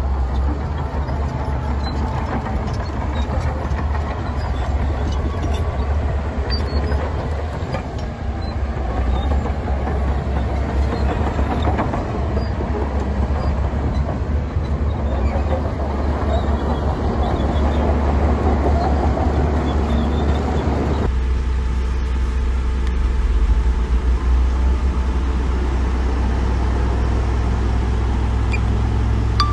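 Heavy diesel earthmoving machinery, dump trucks and a bulldozer, running with a steady low rumble. The sound changes suddenly about two-thirds of the way through.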